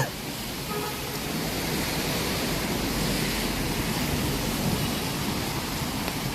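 Steady hiss of traffic on a wet street, tyres swishing on the rain-soaked road, a little louder through the middle.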